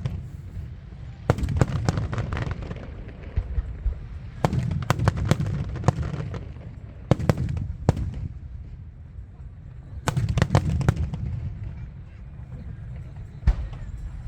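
Aerial fireworks display: shells bursting in clusters of sharp bangs about every three seconds, each cluster followed by a low rumble.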